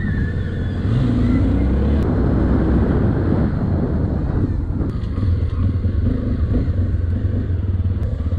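Patrol motorcycle's engine running as it rides slowly along a dirt road, with a steady low rumble of engine and wind on the microphone.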